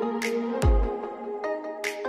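Background music: sustained chords with a deep kick drum about half a second in and a sharp percussive hit near the end.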